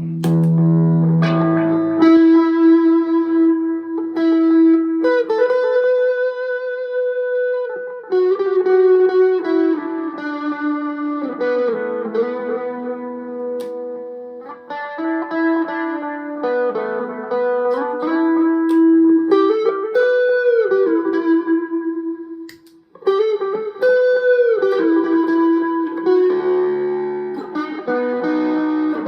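Electric guitar played through effects pedals: a single-note melodic line with held notes and string bends, breaking off briefly a little after twenty seconds before carrying on.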